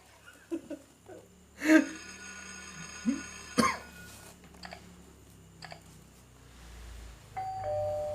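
A few short cough- and hiccup-like vocal sound effects and a sharp click, then near the end a two-note 'ding-dong' doorbell chime, the second note lower.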